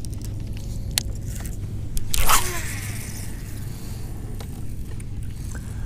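A cast with a baitcasting rod and reel: a swish of the rod about two seconds in, then the reel's spool spinning with a falling whine as the line pays out. A steady low hum runs underneath.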